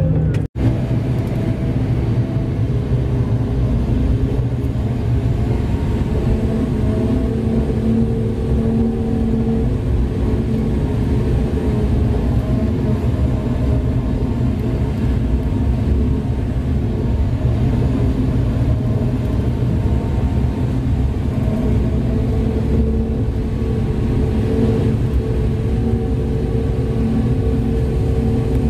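Large diesel engine of heavy mining equipment running steadily under load, a loud deep rumble with a steady engine note. The sound drops out for an instant about half a second in.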